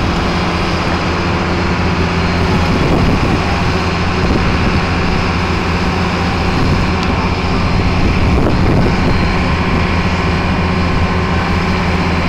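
Mobile crane's diesel engine running steadily under load as its telescopic boom hoists the bungee cage.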